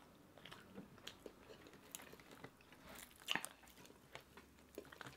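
Faint sounds of people eating fried fish with their hands: scattered soft chewing and small wet clicks, with one louder click about three seconds in.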